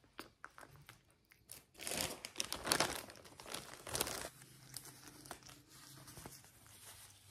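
Plastic packet crinkling and rustling as it is handled. The crinkling is loudest for about two seconds starting around two seconds in, with scattered small clicks before and fainter rustling after.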